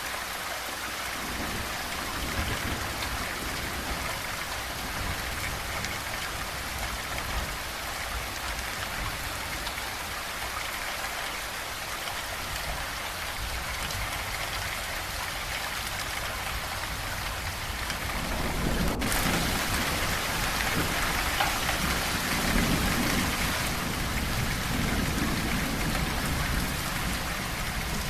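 Steady rain falling. About two-thirds of the way through it abruptly turns louder and heavier, with low rumbling underneath.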